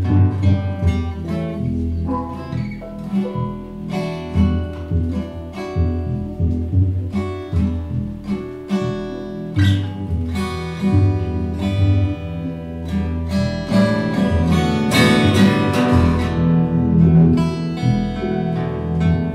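Instrumental music led by plucked guitar notes in quick succession over a low bass line.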